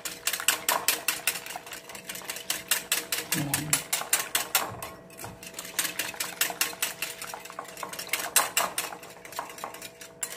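Eggs and milk being beaten briskly in a glass bowl, the metal utensil clicking against the glass in a fast, even rhythm of about five strokes a second.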